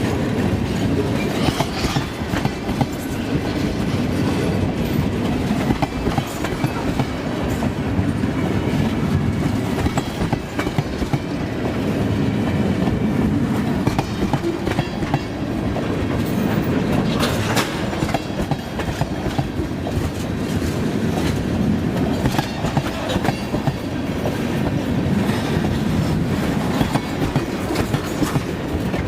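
Freight train tank cars rolling past with a steady rumble, their wheels clicking irregularly over the rail joints.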